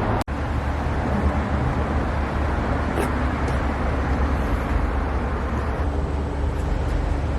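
Steady outdoor background noise with a strong low rumble, like distant traffic, broken by a brief dropout just after the start.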